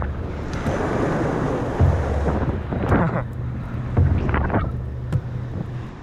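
Sea waves breaking and washing over coastal rocks, with wind buffeting the microphone. The rush of water is loudest in the first two seconds or so, then eases under the rumbling wind.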